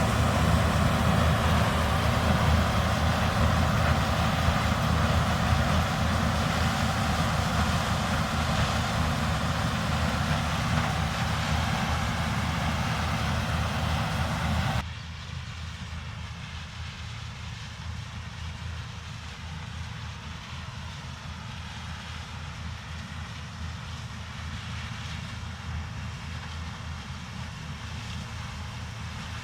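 Heavy diesel farm machinery running steadily at harvest work. About halfway through the sound cuts abruptly to a quieter, duller engine drone that carries on steadily.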